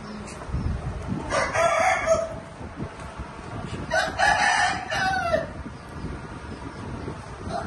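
Rooster crowing twice, a shorter crow about a second in and a longer one about four seconds in, over a low rumble.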